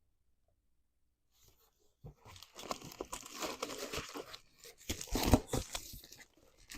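Packaging being torn open and crumpled by hand to unwrap a book: a run of tearing and crinkling that starts about two seconds in and is loudest a little past the middle.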